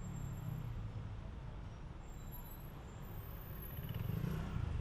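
Busy city street traffic: a steady low rumble of vehicle engines and tyres, growing louder near the end as a vehicle passes close by.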